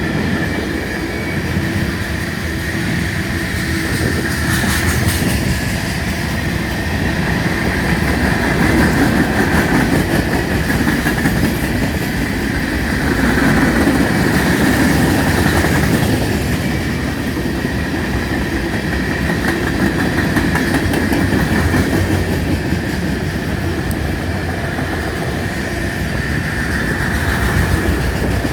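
Freight cars of a long manifest train rolling past at slow speed: steady rumble and clatter of the wheels on the rails, with a thin high ring from the wheels held above it, swelling and fading.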